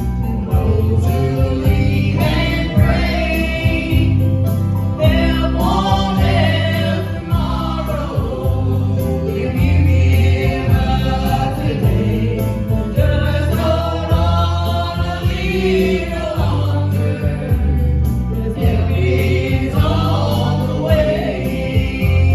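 Southern gospel group singing in harmony with instrumental backing and a steady bass line.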